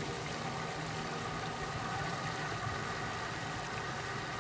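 Hailea BF-450 pond pump-aerator running steadily on its weaker summer setting: an even mechanical hum with water churning at the surface.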